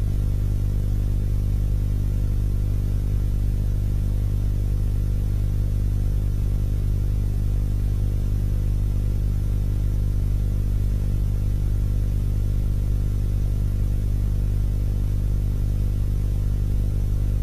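Steady low electrical hum, buzzy with many evenly spaced overtones, unchanging in pitch and level.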